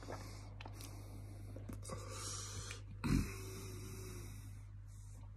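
A man breathing hard and blowing air out through his mouth against the burn of Carolina Reaper chillies, in airy gusts, with a short low thump about three seconds in.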